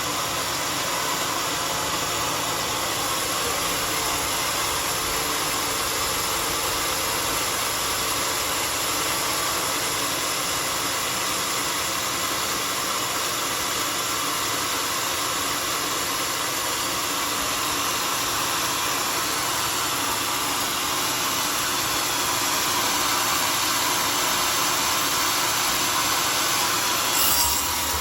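Homemade sawmill running steadily as it saws a mahogany log: an even, unbroken mechanical noise.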